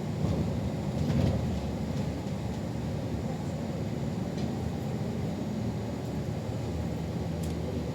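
Inside a city bus on the move: a steady low rumble of engine and road, with a few faint rattles.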